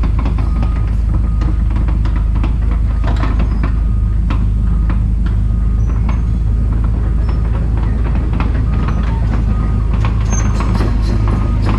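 Heavy diesel machine running steadily, a deep rumble with many short metallic clicks and clanks over it.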